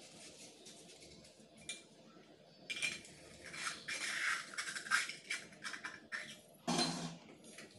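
Green scouring pad scrubbing a small metal plate: rough, scratchy rubbing strokes, faint at first and louder and choppier from about three seconds in. A short thump near the end.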